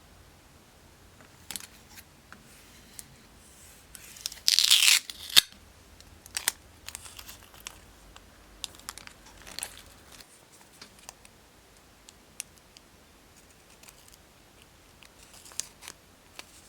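Crafting sounds at a work table: one short, loud tear about four and a half seconds in, among scattered light clicks and rustles of materials being handled.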